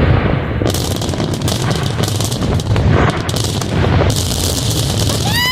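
Fireworks display: a dense, continuous run of shells bursting with rapid bangs and crackle, loud throughout.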